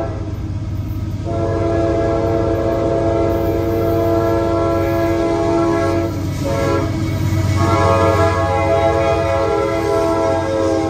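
GE CW44AC (AC4400CW) freight locomotives approaching and passing. The lead unit sounds its chord air horn in long blasts over the low rumble of the diesel engines. The horn drops out about a second in and again briefly about six seconds in.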